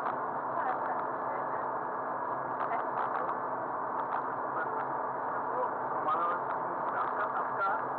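Aquila A211's Rotax 912 flat-four engine idling at low rpm while the aircraft taxis: a steady drone heard inside the cockpit. A few brief wavering squeaks come in between about six and seven and a half seconds in.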